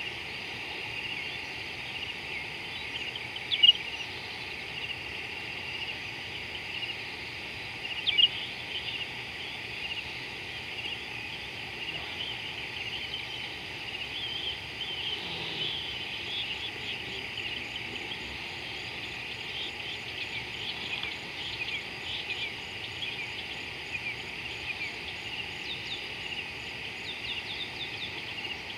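Evening chorus of insects and birds: a steady high chirring full of small chirps, with two louder bird calls about three and a half and eight seconds in.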